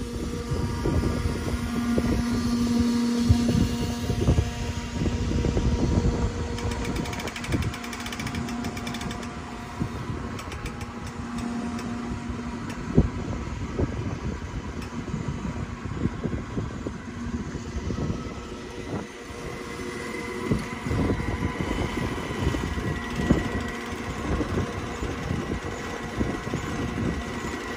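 Marina fuel pump motor humming steadily while a boat is being filled with gas, with an irregular low rumble underneath.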